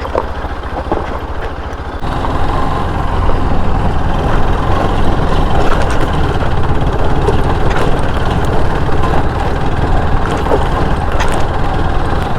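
Bajaj Pulsar RS200's single-cylinder engine running, stepping up in level about two seconds in and then holding steady.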